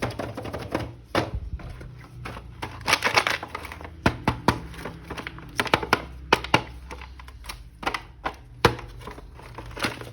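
Plastic packaging crinkling and tearing as a toy action figure is unwrapped, with many sharp clicks and snaps of hard plastic parts being handled.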